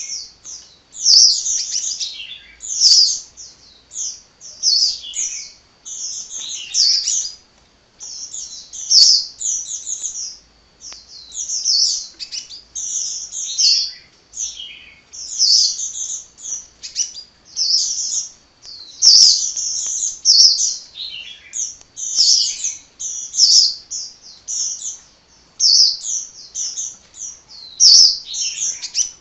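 A sunbird (the bird keepers' 'kolibri') singing almost non-stop: rapid runs of high, thin chirps and twitters in quick phrases with only short breaks. A few sharp clicks come through between phrases.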